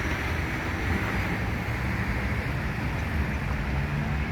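Steady city street traffic noise, a constant low rumble of passing vehicles with no distinct events.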